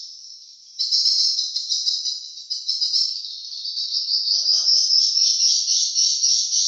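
Edible-nest swiftlets twittering: a dense, continuous high-pitched chirping that drops away briefly and comes back abruptly about a second in.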